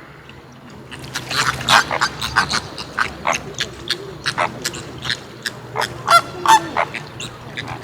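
Flamingos honking: a quick, irregular run of short calls, starting about a second in and going on to near the end.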